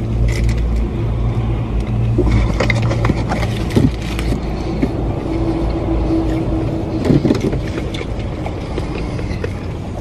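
Steady low rumble inside a car, with paper burger wrappers crinkling now and then as two people eat.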